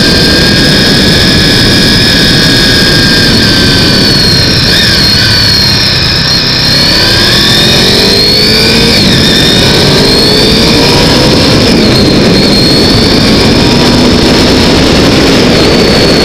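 Honda VFR800's V4 engine running at road speed, heavily mixed with wind rush on the camera. About six seconds in, the engine note dips briefly, then climbs steadily over the next few seconds as the bike accelerates.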